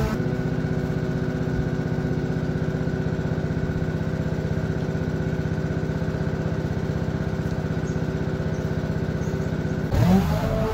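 Walk-behind petrol lawn mower engine running at a steady speed: an even hum with a fast flutter that stops suddenly near the end.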